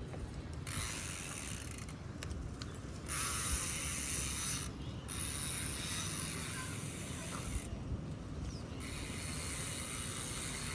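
Bicycle disc brakes braking repeatedly while the bike is ridden to heat the rotor and bed in freshly cleaned pads. The pads rub on the rotor with a hiss in stretches of a second or more with short breaks, alongside mechanical clicking.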